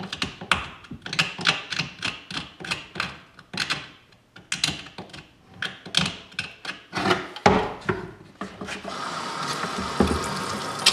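A knife blade scraping boiled tendon and meat off a whitetail deer skull in quick repeated strokes, about four a second. About nine seconds in, a tap of hot water starts running steadily.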